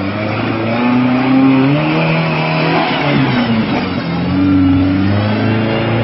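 Jeep Comanche (MJ) pickup's engine revving under load as the truck crawls up a slick rocky climb, its pitch rising and falling a few times.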